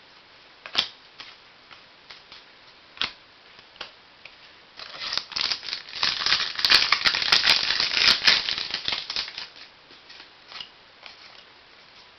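Trading cards and their packaging handled by hand: a couple of light clicks, then a few seconds of dense crinkling and rustling, about five to nine seconds in.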